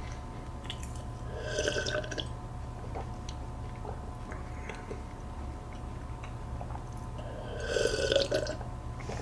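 A man drinking milk from a plastic cup: two short spells of gulping and swallowing, one about a second and a half in and a louder one near the end, with a few small clicks between.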